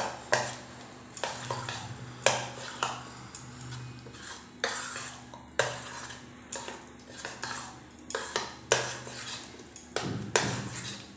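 Metal spoon stirring thick semolina idli batter in a stainless steel pot, scraping and clinking against the pot's sides in irregular strokes about one or two a second. A faint steady low hum runs underneath.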